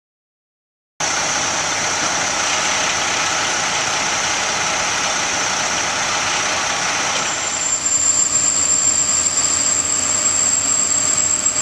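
Aerial ladder fire truck's engine running steadily, cutting in suddenly about a second in. Around seven seconds in a high steady whine joins and the sound grows a little louder and rougher as the aerial ladder is raised on its hydraulics.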